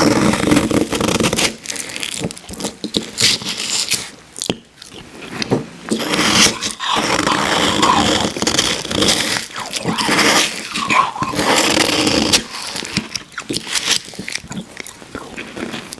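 Close-miked eating of icy Icee slush: crunching and scraping of the frozen slush with chewing, in many short irregular bites.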